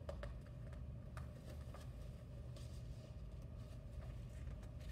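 Pages of a large hardcover picture book being handled and turned: a few faint paper rustles and soft taps over a steady low room hum.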